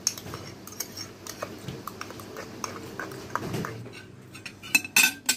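A metal spoon clicking and scraping as it stirs in a plastic cup. A few louder clinks of cutlery against dishes come shortly before the end.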